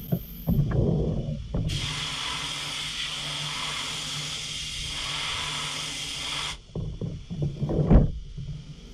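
Fanuc RoboDrill CNC mill: a steady blast hisses for about five seconds, starting and stopping abruptly, between irregular low knocks and rattles of the machine at the end of a machining operation.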